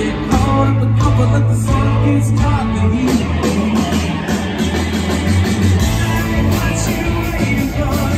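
Live rock band playing an instrumental break on electric guitars, bass, keyboards and drums, with a harmonica played into the vocal microphone.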